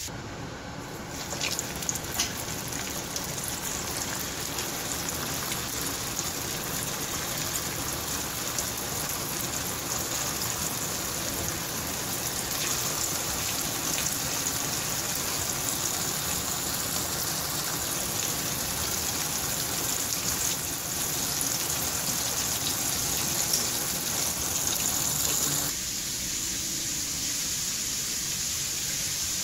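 Flour-coated chicken pieces deep-frying in a wok of hot oil, a steady sizzle with crackle. A few sharp pops come a couple of seconds in, and near the end the sizzle turns thinner and higher.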